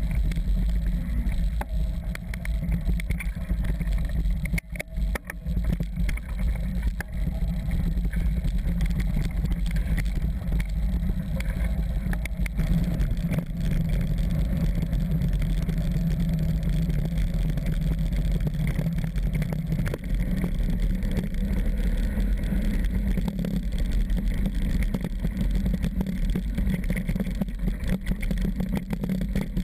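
Wind rumbling steadily on an action camera's microphone as a mountain bike rolls fast over a loose gravel track, mixed with the noise of the tyres on the stones. It drops briefly about five seconds in.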